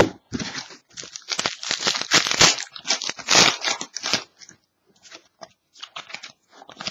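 Plastic wrapper of a Panini Certified hockey card pack being torn open and crinkled, a dense crackling that is loudest a couple of seconds in and lasts about four seconds. Then lighter rustling and clicks as the stack of cards is slid out and handled.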